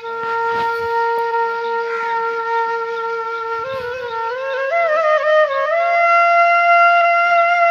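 Music: a solo flute-like wind instrument holds one long note for several seconds, then plays a short stepping phrase and settles on a higher held note.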